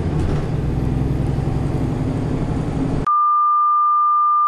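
City bus cabin noise: a steady low engine and road rumble. About three seconds in it cuts off abruptly to a loud, steady single-pitch test-tone beep that goes with colour-bar test-pattern graphics.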